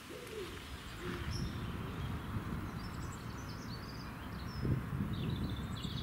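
Wind buffeting the microphone as a low, uneven rumble, swelling briefly near the end, with small birds chirping faintly in the background.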